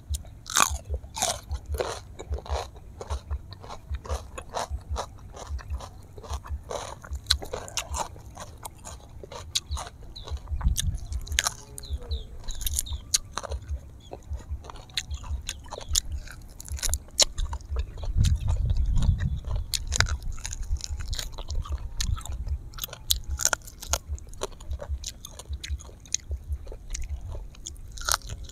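Close-miked eating sounds: chewing and crunching on grilled honey duck and raw greens, with frequent sharp mouth clicks and bites. A low rumble for a couple of seconds just after the middle.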